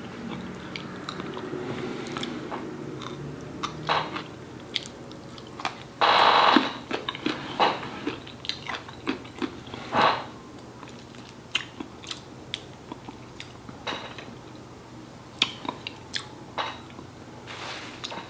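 Close-up chewing and wet mouth sounds of a person eating shrimp and chicken curry with rice, with many small smacks and clicks. There are two louder bursts, about six and ten seconds in.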